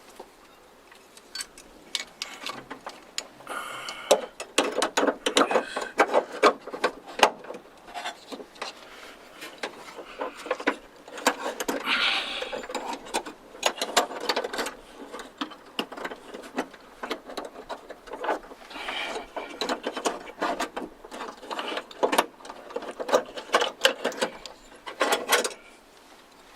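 Metal lock parts clicking, knocking and scraping in irregular runs as a trunk lock cylinder and its retaining clip are worked into a car's trunk lid by hand.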